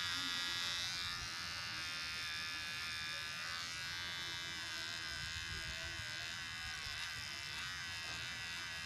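Xiaomi Mi cordless beard trimmer running with a steady high-pitched buzz as it is moved over the cheek, cutting stubble.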